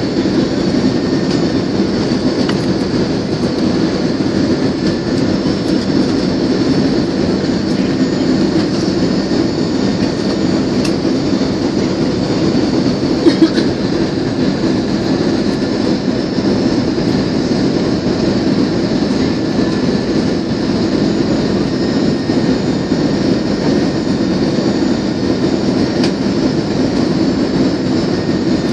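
Steady airliner cabin noise during the landing approach: jet engine and airflow noise heard from a window seat. A brief loud knock about thirteen seconds in.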